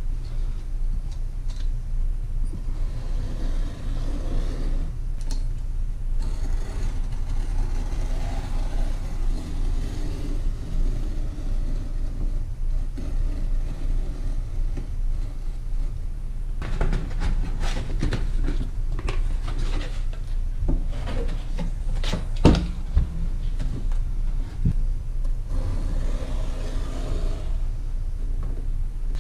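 A steady low rumble runs throughout. From about 17 to 23 seconds in come scrapes and knocks of a metal straightedge and knife working on craft paper, with one sharper knock about 22 seconds in.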